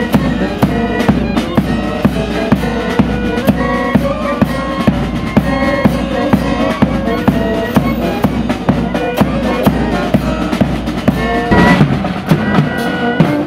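Brass band playing a tune: euphoniums, trumpets and saxophone over a steady bass drum and snare drum beat.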